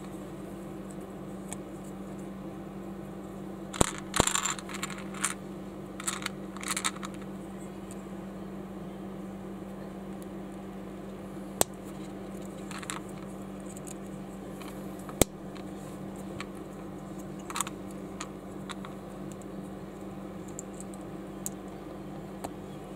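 Small plastic building bricks clicking and rattling as they are handled and pressed together, in scattered sharp clicks with a short flurry of them early on, over a steady low hum.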